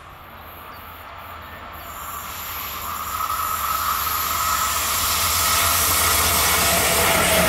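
Locomotive-hauled intermodal freight train carrying truck trailers approaching along the line, its rumble growing steadily louder, with a thin whine that drops slightly in pitch near the end as the locomotive comes close.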